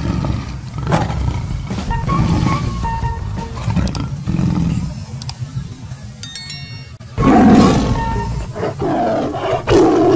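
Tiger roar sound effects repeating over background music, loudest from about seven seconds in. A short bell-like ding sounds about six and a half seconds in.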